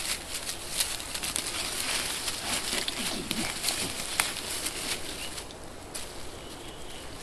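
Dense rustling and crackling in dry leaves and undergrowth as a small terrier scrabbles about and tugs at its find at the end of a drag track.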